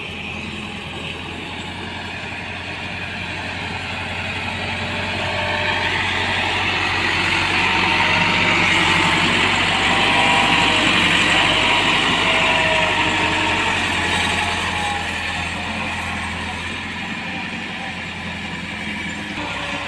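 Massey Ferguson 385 tractor's diesel engine running steadily, growing louder toward the middle and fading again, with wavering high squeaks near the loudest part.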